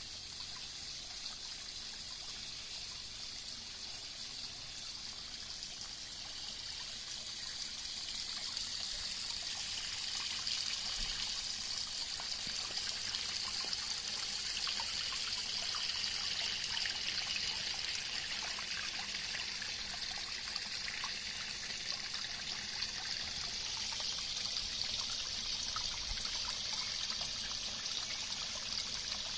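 Water from an Aquascape pond spillway pouring in a sheet into a garden pond: a steady splashing trickle that grows louder after several seconds and then holds.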